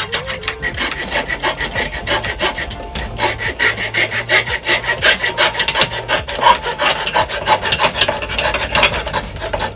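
Coping saw cutting a small piece of wood by hand, in quick, even back-and-forth strokes.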